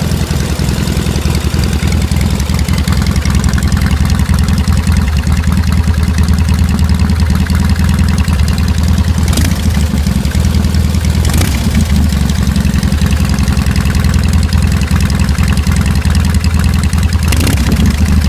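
Kyiv K-750 motorcycle's side-valve flat-twin engine idling steadily, with three brief sharp clicks partway through.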